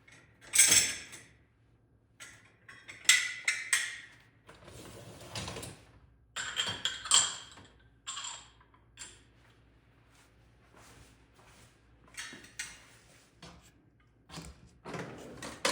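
Irregular clicks, knocks and short scraping or rubbing noises from objects being handled during cleaning, with short quiet gaps between them.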